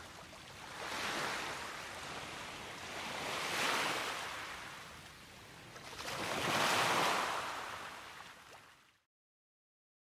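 Ocean waves washing onto a shore, in three swells about three seconds apart, cutting off abruptly near the end.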